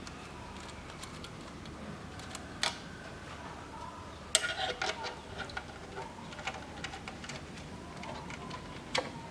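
Socket ratchet clicking in short runs as the 10 mm bolts holding an automatic transmission's oil filter are loosened. There is a single sharp click about two and a half seconds in, a quick run of clicks a little past four seconds, and another click near the end.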